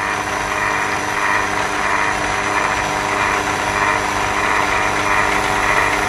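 Electric HVAC vacuum pump running steadily on the refrigerant lines of an LG VRF air conditioner, with the system already pulled down to about 500 microns.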